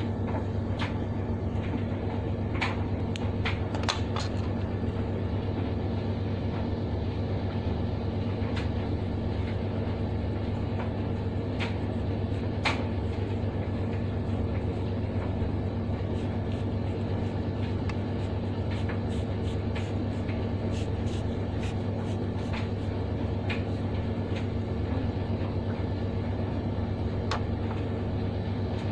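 Steady low machine hum, with scattered light clicks and taps.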